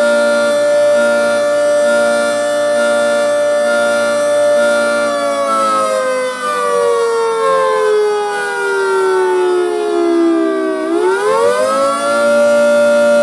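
Federal Signal 3T22 three-tone electromechanical tornado siren sounding its chord steadily, then falling slowly in pitch for several seconds and swinging quickly back up to full pitch near the end.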